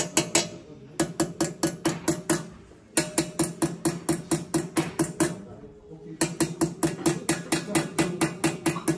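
Small hammer tapping a steel chisel into a brass tray, hand-chasing a pattern: quick runs of sharp metallic strikes, about six a second, each with a short ring from the brass plate. The runs break off for brief pauses, the longest about five to six seconds in.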